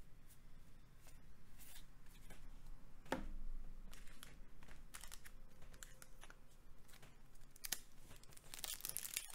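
Magic: The Gathering cards being handled and laid down, with faint slides and taps and one sharper tap about three seconds in. Near the end a foil booster pack wrapper starts to crinkle as it is handled and torn.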